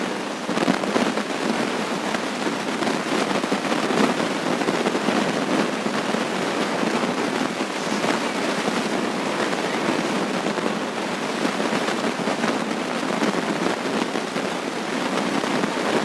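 Loud, steady crackling hiss like heavy rain, made of dense tiny crackles. The uploader says there was no rain, so where it comes from is unexplained.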